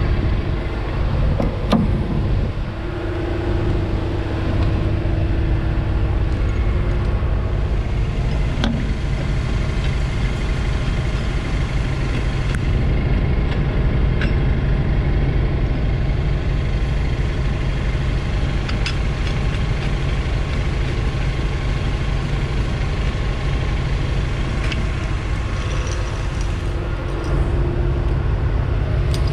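Tow truck engine idling steadily, with a few short clicks over it.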